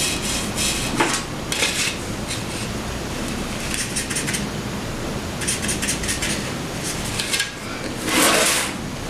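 Short, scratchy strokes of an angled paintbrush dragged along the paper-covered edge of an MDF box, brushing on brown shading paint, with a light clink or two of the brush against a plastic palette tray; the longest, loudest stroke comes about eight seconds in.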